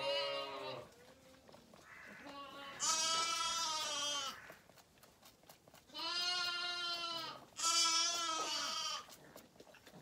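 Zwartbles lambs bleating four times: a short bleat at the start, then three longer, quavering bleats about 3, 6 and 7.5 seconds in.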